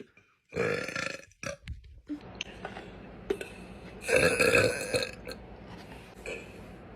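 A woman burping out loud, twice: a short burp about half a second in and a longer one about four seconds in.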